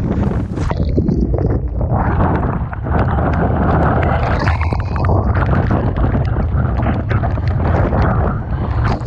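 Strong typhoon wind buffeting the microphone over the steady rumble of rough sea and crashing waves, with crackling spatters throughout.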